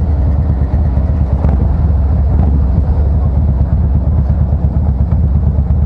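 Harley-Davidson Fat Boy Special's V-twin running steadily under way through a Supertrapp variable exhaust, a deep, even exhaust note.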